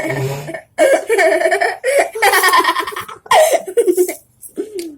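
Girls laughing hard, in several bouts of about a second each, fading out near the end.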